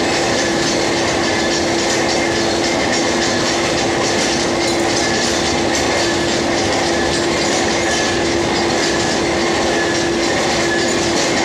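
Lathe running through a machining cut: a loud, steady mechanical din with a constant hum and a faint rhythmic clatter.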